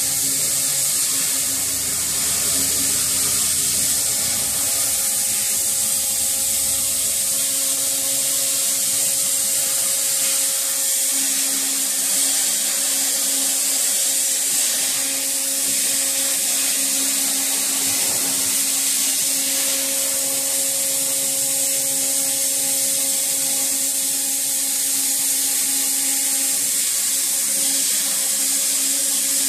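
Oxy-fuel cutting torch on a CNC torch table hissing steadily as it cuts steel plate, with a machine whine underneath whose higher tones come and go as the gantry moves.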